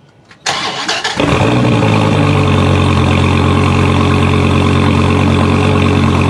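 Truck engine being started: a brief crank about half a second in, the engine catching at about a second, then idling steadily with a low, even hum.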